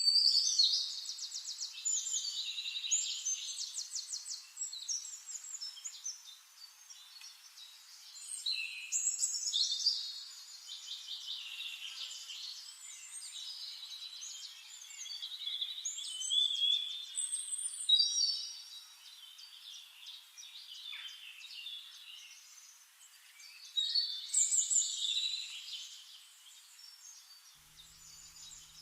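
Songbirds singing, several overlapping songs of high, rapid trills and chirps. Louder bouts of song come about every eight seconds, with softer chirping between.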